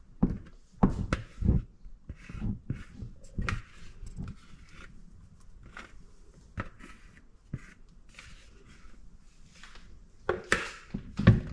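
Irregular knocks and scrapes of a silicone spatula scraping the last pancake batter out of a mixing bowl into a frying pan, with a few louder knocks in the first second and a half and again near the end.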